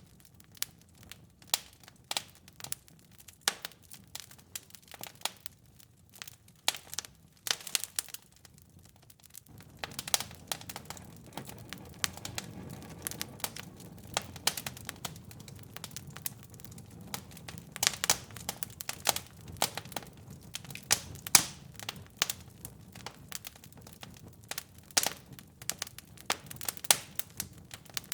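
Wood fire in a fireplace crackling: irregular sharp snaps and pops, with a low steady rush coming in under them about a third of the way through.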